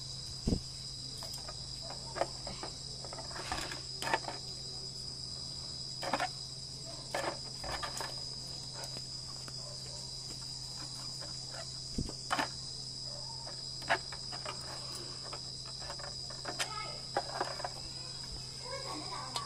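Steady high insect chirring, like crickets, with scattered sharp clicks and knocks as a knife blade pries an LED board out of a plastic solar floodlight housing.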